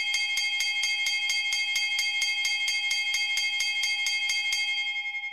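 Electric school bell ringing: a clapper striking rapidly, about six strokes a second, over a steady metallic ring. It fades near the end.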